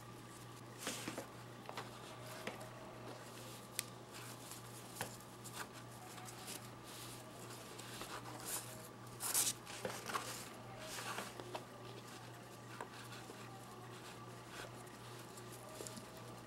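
Faint rustling and small clicks of paracord being handled, threaded and pulled tight by hand while a bracelet is knotted, with a steady low hum underneath.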